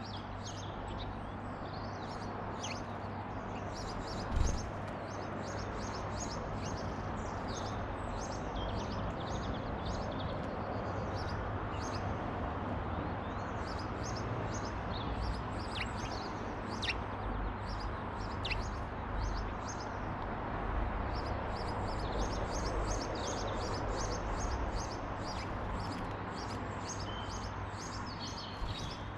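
Small garden birds chirping and twittering with many short, rapid high notes and a few quick downward-sliding calls, over a steady background hiss and low hum. A brief low thump comes about four seconds in.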